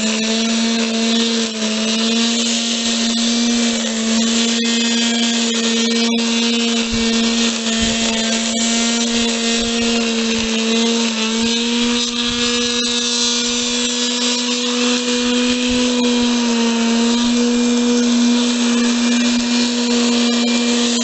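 Flymo Mini Trim corded electric grass trimmer running at a steady pitched whine, its spinning plastic cutter trimming grass along the base of a fence.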